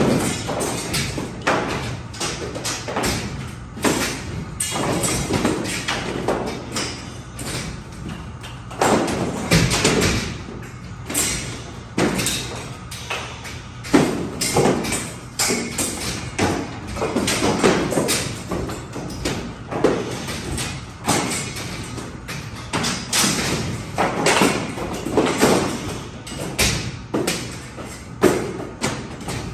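Old ceiling panels being knocked out of a suspended metal ceiling grid and dropping: irregular thuds, knocks and bangs throughout, with music playing underneath.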